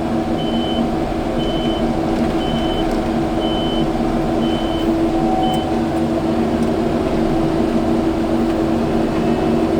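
Kubota skid steer's diesel engine running steadily, with its reversing alarm beeping about once a second as it backs up; the beeping stops about five and a half seconds in while the engine runs on.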